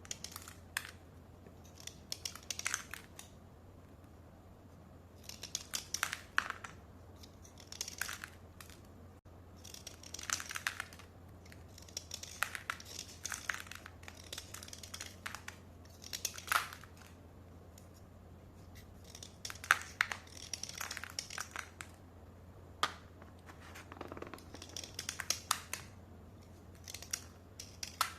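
A slate-pencil pack being opened and handled by hand: irregular bursts of crinkling and tearing packaging, each about a second long, with short gaps between them.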